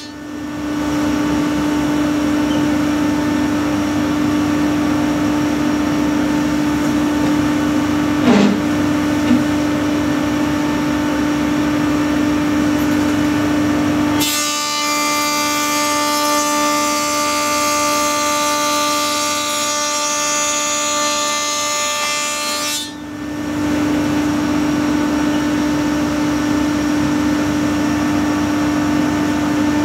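SCM S520 thicknessing planer running empty with a steady hum. About halfway a board is fed through and the cutterhead planes it for about eight seconds, a brighter, noisier cutting sound, before the machine drops back to running empty. There is a short knock about eight seconds in.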